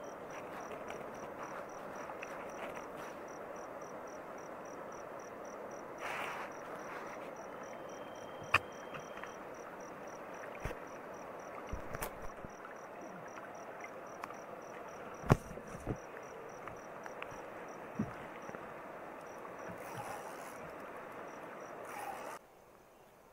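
Night insects chirping steadily, crickets among them, with a high chirp pulsing at an even rate. A few sharp clicks cut through, the loudest about fifteen seconds in, and the sound drops away abruptly near the end.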